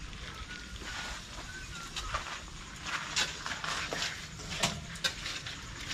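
Scattered scrapes and knocks of hand tools working soil as the dug ground is levelled, growing busier after about two seconds, with a few faint high chirps early on.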